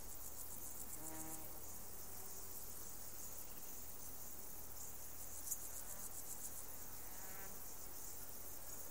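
Field insects stridulating: a continuous shrill, high-pitched chirring made of rapid, evenly spaced pulses, with a brief louder tick about halfway through.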